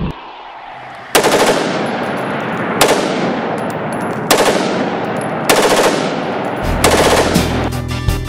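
AR-15 rifle with a bump fire stock firing five short bursts of rapid shots, a little over a second apart, each trailing off in echo.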